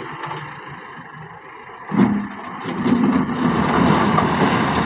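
Massey Ferguson tractor's diesel engine running at low revs, then revving up sharply about two seconds in and staying loud under load as the front loader works the stone pile.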